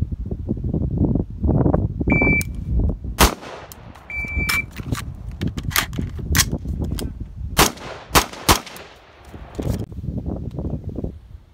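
An AR-style rifle with an A2 muzzle brake firing about eight shots at an uneven pace, most of them in the middle of the stretch. Two short electronic beeps at one steady high pitch come before and between the first shots, over a low rumble.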